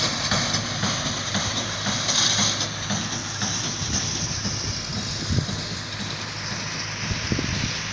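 Tractor-drawn hay baler running in hay, a steady mechanical din with a rapid, even clatter through the first few seconds.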